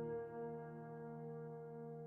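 Slow, sad piano background music: one held chord slowly dying away.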